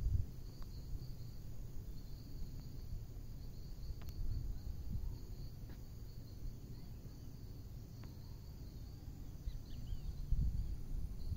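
Insects chirring steadily in a high, finely pulsing band over a low rumble on the microphone, the rumble swelling briefly near the end.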